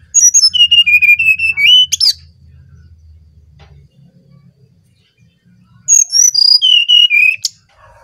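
Brown-chested jungle flycatcher singing its fluty song: two phrases of about two seconds each, the second starting about six seconds in. Each phrase steps down from high whistles to a run of lower warbling notes and ends in a quick upward flick. A faint low hum runs underneath.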